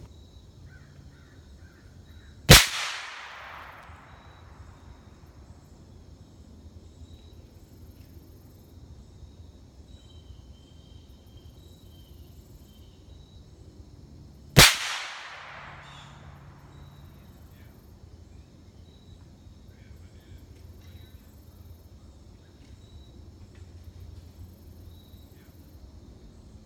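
Two suppressed rifle shots from a .308 Savage fitted with a YHM suppressor, about twelve seconds apart, each a sharp crack with a short trailing echo.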